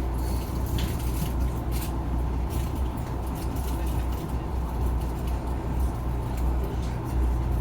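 Boat engine running steadily, a low, even hum, with scattered light knocks and clicks over it.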